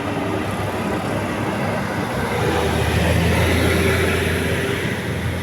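Bus running on the road, a steady engine and road noise whose low rumble grows louder from about two seconds in and eases again near the end.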